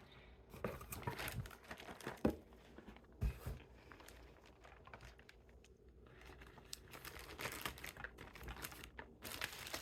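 Plastic zip-top bag and packaging crinkling and rustling as it is handled and opened, with two sharper knocks about two and three seconds in.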